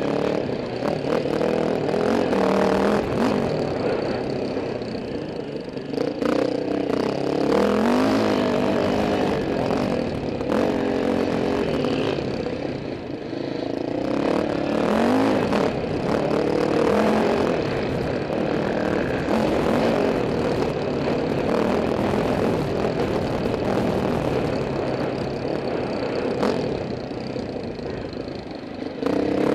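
Off-road dirt bike engine under hard acceleration, its pitch climbing and then dropping again and again as the rider shifts gears and backs off for turns on a rough dirt trail. Scattered knocks and rattles from the bike over the bumpy ground come through with it.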